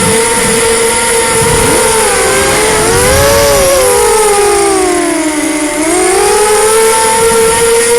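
Racing quadcopter's four brushless motors spinning Gemfan 5045 bullnose props, a steady high whine. About two seconds in the pitches split apart and sag as the throttle changes, lowest around five to six seconds in, then rise back together into the steady whine. Low wind rumble on the microphone at the start and end.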